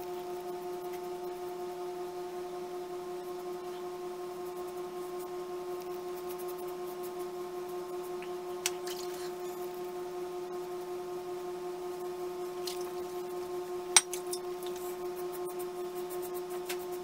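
A steady humming tone with a few overtones, under the faint scratching of a Fine Superlight plastic slant safety razor cutting stubble on an against-the-grain pass. There is a sharp click about 14 seconds in.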